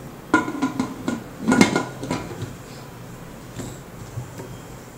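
Aluminium pressure cooker lid being set on the pot and twisted shut: a quick run of metal clanks and scrapes, the loudest about one and a half seconds in, then a couple of lighter knocks.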